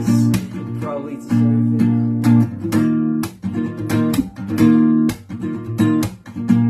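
Acoustic guitar strumming chords in a steady, repeating rhythm, an instrumental passage between sung lines.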